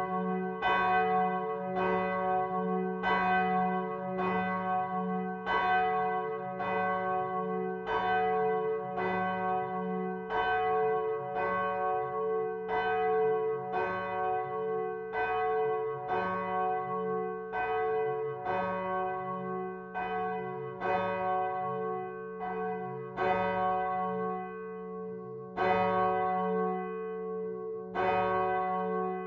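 Bronze church bells cast by Michiels of Tournai in 1957, swinging and ringing inside the belfry. The clapper strokes come about every three-quarters of a second, over a steady, lingering hum.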